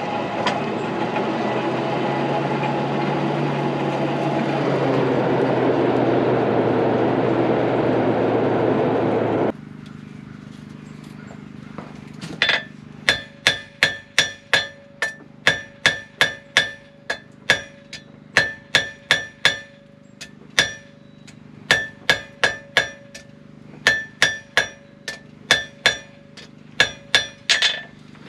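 A hand-cranked forge blower whirs steadily, its pitch drifting with the cranking, until it cuts off abruptly. A few seconds later a hammer starts striking hot round steel on a Hay Budden anvil at about two blows a second, in runs with short pauses, each blow ringing, as the tip is drawn out square.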